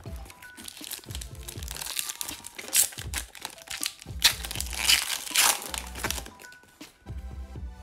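Foil wrapper of a 2006-07 Fleer hockey card pack crinkling and tearing as it is opened by hand, loudest in two stretches in the middle. Background music with a steady bass line plays throughout.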